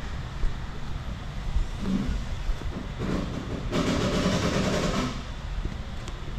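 A 14-inch, 3 hp electric chop saw running over a steady low rumble, with a louder stretch of about a second and a half a little past the middle.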